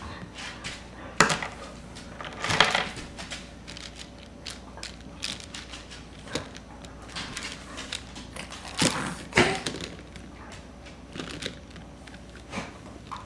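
Plastic linking teething rings clicking and clattering against each other as they are handled, in scattered bursts, loudest about a second in, about two and a half seconds in and twice around nine seconds.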